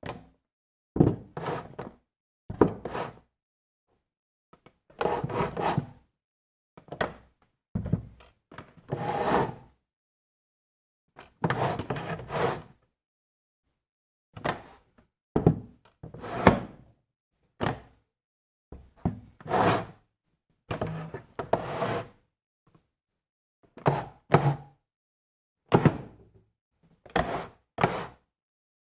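Wooden chair being moved and shifted: a series of short scrapes, creaks and knocks of wood, each lasting under a second or so, with silent pauses between them.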